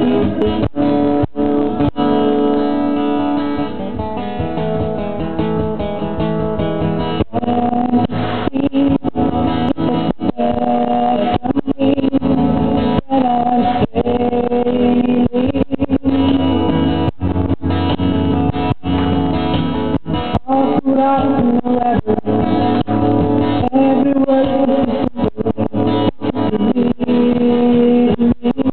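Background song led by acoustic guitar, playing steadily with frequent brief dropouts, in an instrumental stretch between sung verses.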